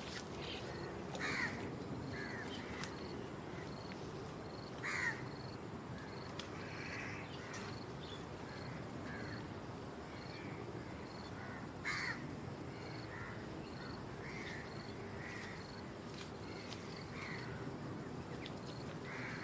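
Birds calling now and then, the loudest calls about a second and a half, five and twelve seconds in, over a steady high insect buzz and a faint regular chirp repeating about twice a second.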